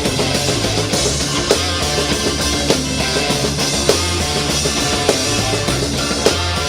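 Rock music with a drum kit, dense and loud, with a hard accented hit about every second and a quarter.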